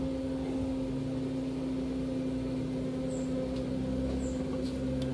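Steady electrical hum from a powered-up audio mixer and its amplified speaker, with a faint low rumble under it.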